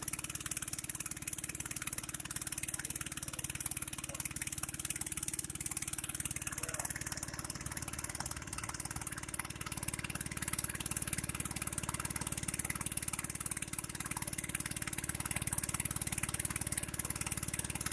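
A small motor vehicle's engine running steadily at an even speed, with a constant rushing hiss over it.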